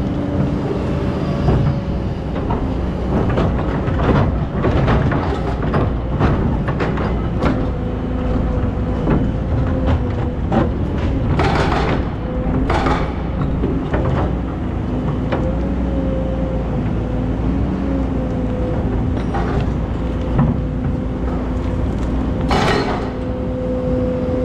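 Excavator's diesel engine running steadily, with many short knocks and clatters, typical of the bucket working sand and stones.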